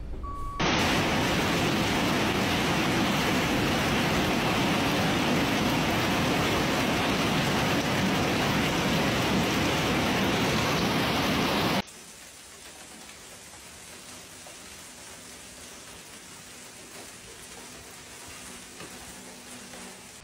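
Storm downpour of heavy rain and hail: a loud, dense, steady hiss that starts abruptly just under a second in and cuts off suddenly about twelve seconds in. After it, a much fainter steady hiss.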